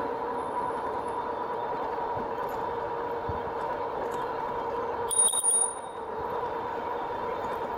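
2018 RadRover electric bike's geared hub motor whining steadily under power as it rides at speed, over tyre and wind noise. A brief high-pitched ringing of a few quick strikes comes about five seconds in.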